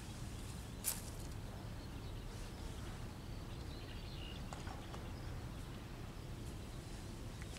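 Outdoor ambience by a pond: a steady low rumble, with one sharp click about a second in and faint high chirps near the middle.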